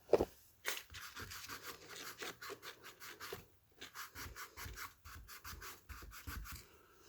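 A sharp knock, then quick rubbing and scratching strokes, about six a second, for a few seconds, followed by more irregular scraping.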